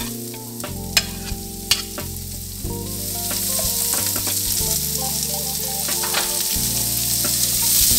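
Hot oil sizzling in a non-stick frying pan as julienned carrot sticks are tipped in among sliced onion. There are a few sharp clicks in the first two seconds as the carrots drop in, and the sizzling grows louder from about the middle on.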